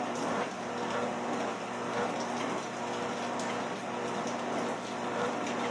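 Home treadmill running under a walker: a steady motor hum with belt noise and a few faint footfall thumps.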